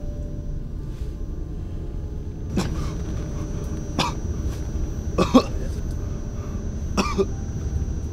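A person coughing and gagging in four fits over several seconds, the third a double cough and the loudest, over a low steady rumble.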